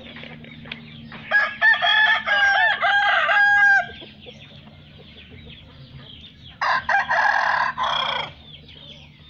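Gamecocks crowing: one long, clear crow in several segments starting about a second in and lasting over two seconds, then a second, rougher crow near the end.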